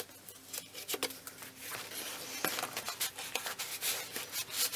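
Paper rustling with small irregular taps and scrapes as hands handle a paper tag and slide it into a junk journal page.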